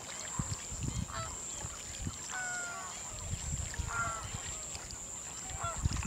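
A flock of waterbirds calling: short, slightly falling calls come in small clusters, the loudest about two and a half and four seconds in.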